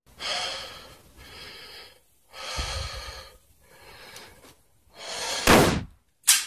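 A man's heavy, gasping breathing: about five hard breaths roughly a second apart, the last the loudest, the laboured breathing of a man who has just been shot. A short sharp knock comes near the end.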